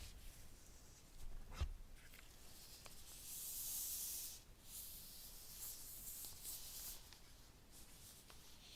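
Faint rubbing and rustling of packaging being handled. There is a soft knock about a second and a half in, and a longer sliding hiss from about three to four and a half seconds in.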